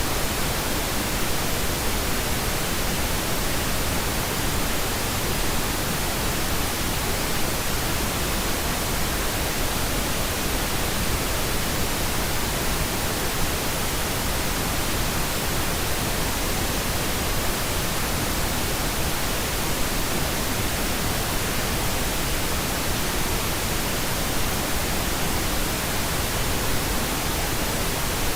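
Steady white noise: an even, unchanging hiss spread across low and high pitches, with no rhythm or breaks.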